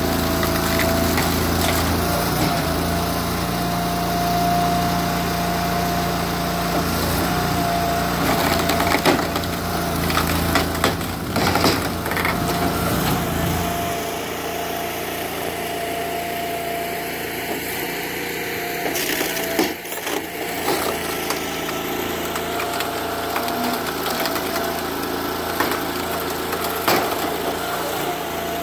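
The 20 hp Honda engine of a hydraulic box-wedge log splitter running steadily, with loud cracks of wood splitting as a log is forced through the wedge, several of them about 9 to 13 seconds in. The deep rumble under the engine eases about halfway through.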